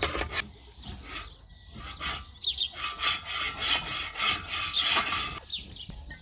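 Repeated rubbing or scraping strokes, about two to three a second, starting about two seconds in and stopping near the end.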